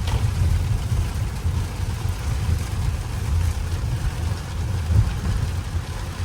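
Low, steady rumble inside the cabin of a 2024 Mercedes-Benz S580.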